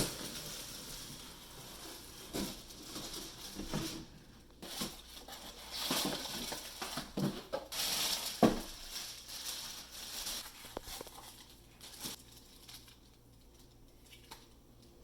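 Packaging being handled during an unboxing: rustling and crinkling of cardboard and plastic, with several knocks, the sharpest about eight and a half seconds in. It grows quieter over the last few seconds.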